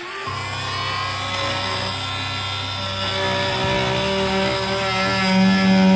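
Cordless oscillating multi-tool switched on and cutting out rotten wooden deck core, a steady buzz that gets louder near the end.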